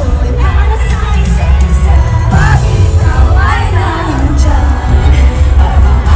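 Loud live pop music with a heavy bass beat and singing, as heard amplified in a concert venue, with the crowd cheering.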